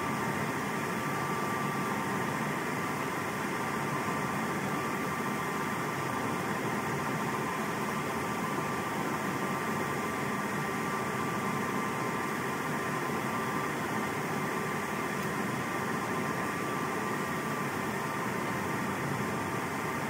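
Hobart FTN rack conveyor dishwasher running: a steady rush of water spray and pump noise with a faint high whine running through it.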